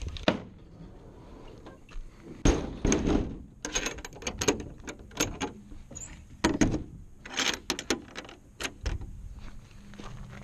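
A run of irregular knocks and clunks, a dozen or so sharp ones over several seconds, with no engine running.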